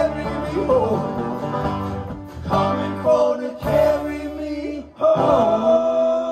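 Live band playing an instrumental country-gospel passage, plucked guitar lines over keyboard and band, with no vocals; the sound drops out for a moment about five seconds in, then a long held note comes in.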